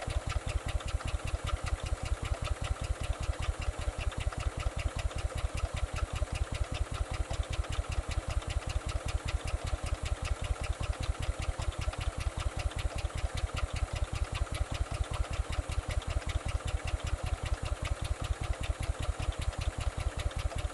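Honda GX160 single-cylinder four-stroke petrol engine running at a steady, even speed while driving an HTP sprayer pump, heard as a rapid, regular pulsing beat.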